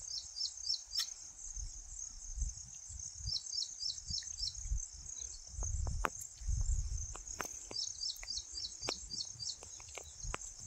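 Insects trilling steadily in grassland, with runs of quick, short chirps every few seconds. Under them there is a low, uneven rumble and a few sharp ticks in the second half.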